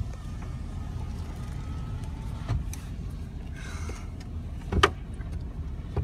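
A car's low, steady engine and road rumble, heard from inside the cabin as it creeps forward slowly, with a few light clicks and one sharper click about five seconds in.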